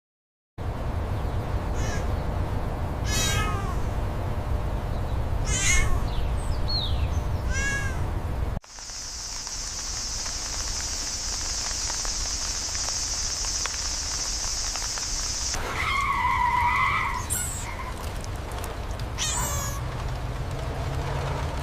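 A cat meowing several times, short calls that rise and fall in pitch, over a steady low rumble. Partway through, the rumble gives way to a steady high hiss, and two more meows follow, one of them longer and lower.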